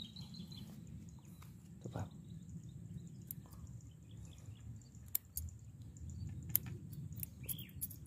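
Faint outdoor ambience in an open vineyard: a steady low rumble with a few brief bird chirps, and a couple of sharp clicks in the second half.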